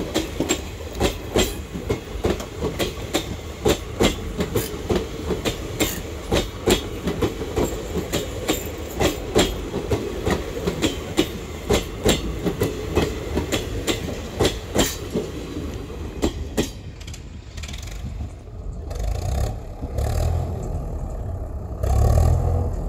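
Wheels of ICF passenger coaches clattering over rail joints as an express train passes. About sixteen seconds in the clatter stops and a low rumble is left.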